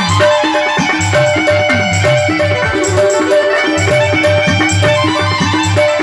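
Instrumental interlude of a folk devotional bhajan: a hand drum keeps a steady beat with low strokes that bend in pitch, under a sustained melodic accompaniment.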